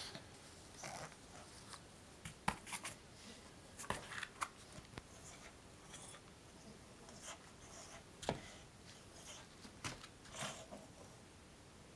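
Small dog playing with a plush teddy bear on carpet: quiet, scattered rustling and a few sharp clicks.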